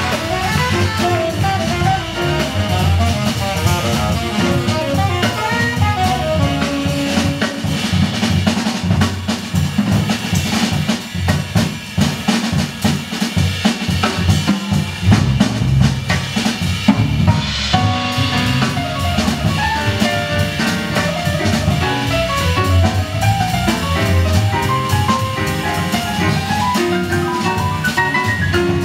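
Live small-group jazz: a drum kit played busily with snare, bass drum and cymbals to the fore, over piano chords and upright bass. The cymbals grow brighter about two-thirds of the way through.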